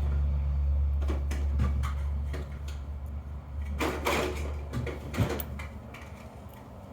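Small knocks and clicks of lock parts being handled and tapped out while a padlock is taken apart, over a low hum that fades out about halfway through.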